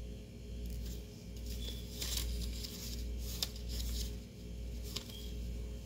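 A paper receipt rustling and crinkling as fingers handle it, with a few light clicks, over a low steady hum.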